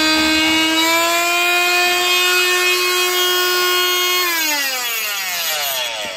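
A small high-speed electric power tool cutting into a fibreglass (FRP) camper roof panel: a steady high-pitched motor whine that falls in pitch as the tool spins down, starting about four seconds in.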